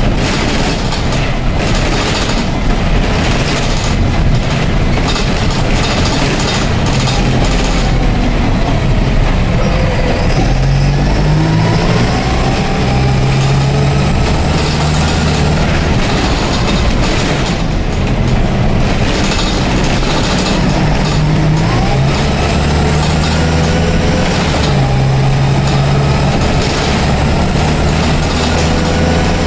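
Dennis Dart single-deck bus with a Cummins diesel and Allison automatic gearbox, heard from inside the saloon with interior rattles. It pulls away twice, about a third of the way in and again about three-quarters through: each time the engine note climbs and steps up through the gear changes, with a faint high whistle rising and holding.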